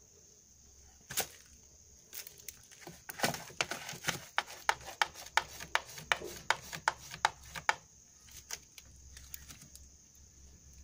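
A cat rummaging in a plastic tub with its head inside: a run of sharp clicks and scrapes about three a second, from about two seconds in to nearly eight seconds in. There is a single louder click about a second in, and a few scattered clicks after the run.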